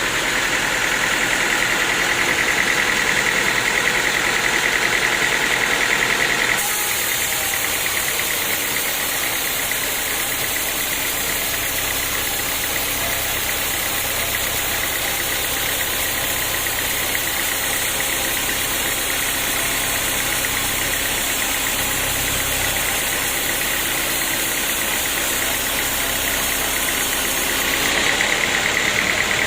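Sawmill engine running steadily. A high, steady whine heard at the start cuts out about six or seven seconds in, leaving a lower, rougher running sound, and comes back near the end.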